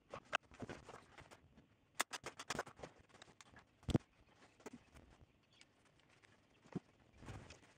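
Scattered light clicks and taps of small tools and parts being handled on a workbench: a screwdriver, a small black heatsink and TO-220 transistors. One sharper click comes about four seconds in.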